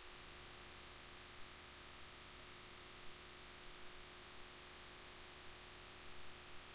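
Near silence: steady recording hiss with a faint electrical hum, broken by a few faint short clicks.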